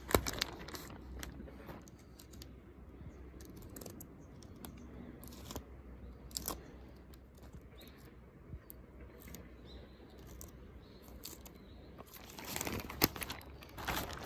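Clear plastic sheeting crinkling and tearing as it is slit with a utility knife, with scattered sharp crackles. About twelve seconds in the sheeting rustles and crackles louder as it is handled and smoothed down.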